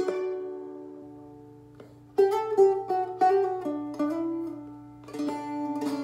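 Seagull Merlin M4 spruce-top, a small four-string dulcimer-style instrument tuned in D, being played: a chord rings out and fades, then a run of picked chords about two seconds in, and quick repeated strumming starting near the end.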